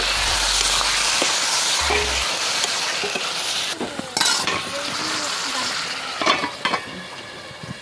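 Raw mutton pieces dropped into hot oil in a pan: a loud sizzle that slowly dies down as the meat is stirred, with a few clinks of the spoon against the pan and a steel lid set on near the end.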